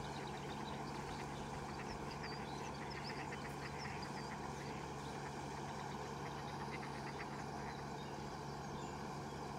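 Pond-side ambience: ducks quacking in short runs and small birds chirping, over a steady low hum.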